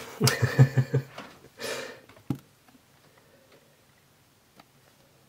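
A quick run of short breathy vocal pulses, like a brief chuckle, then a breath and a single sharp click of a plastic container being handled. Afterwards there is only a quiet room with a few faint ticks.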